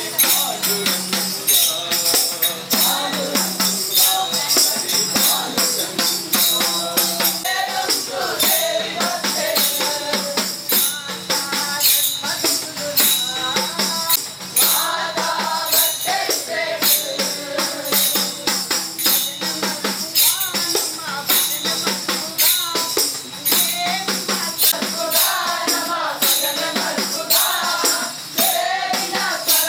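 Tambourine jingles struck in a steady, even beat, with voices singing a group song over it.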